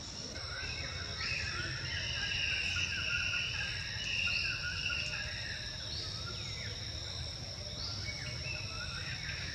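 Insects droning steadily at a high pitch, with a chirping call pattern repeating about every second and a half, over a low rumble.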